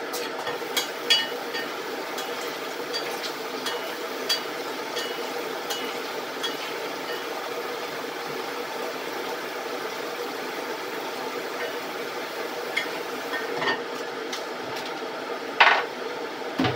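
Potatoes frying in a covered pot on a kitchen stove: a steady sizzle and hum, with scattered clinks of the pot lid and utensils, and a louder knock near the end.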